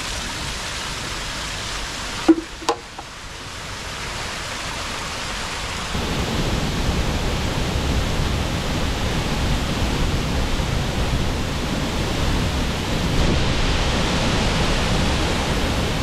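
Water splashing from a bamboo spout and a small rocky stream, broken by two sharp knocks a little over two seconds in; from about six seconds on, the deeper steady roar of a tall waterfall plunging into its pool takes over.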